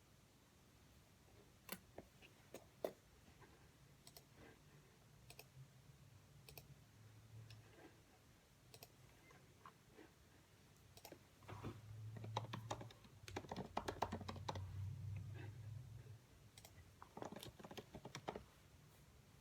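Quiet typing on a computer keyboard: a few scattered key clicks, then two runs of quick typing, one past the middle and a shorter one near the end.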